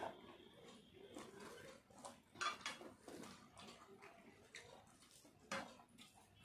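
Faint eating sounds: fingers mixing rice on plates, with soft rustling and a few sharp taps on the plates, the loudest about two and a half seconds and five and a half seconds in.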